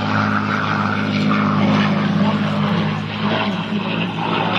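P-51 Mustang fighter's V12 piston engine and propeller droning steadily as it flies a display pass, its pitch wavering slightly in the second half.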